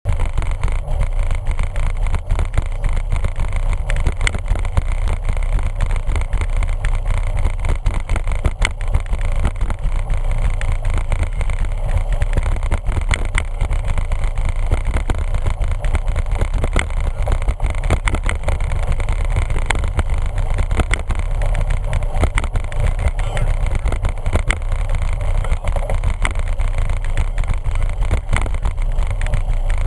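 Wind rushing over the microphone of a camera riding on a bicycle, a steady deep rumble for the whole time, with frequent short knocks and rattles from the mount as the bike goes over the path surface.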